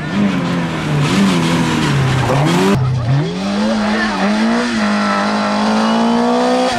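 Opel Corsa A rally car's engine revving hard at close range. Its pitch drops and rises several times in quick succession through the first few seconds, then climbs steadily as the car accelerates away through the gears.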